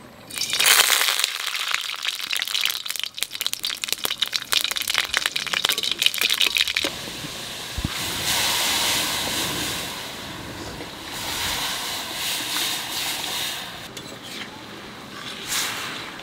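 Black mustard seeds crackling and popping in hot oil in a kadai for about seven seconds. Then cooked dal is poured in over the tempering, and it sizzles and hisses, gradually dying down.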